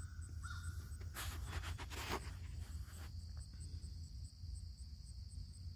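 Insects chirping outdoors: a faint high chirp repeats two to three times a second, and a steady high trill joins about halfway through. A short rustle sounds about a second in.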